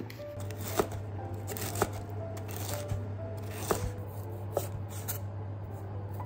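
Chef's knife cutting a red bell pepper and then slicing a sausage on a wooden cutting board, with four sharp knocks of the blade on the board about a second apart. Background music with short held notes plays throughout.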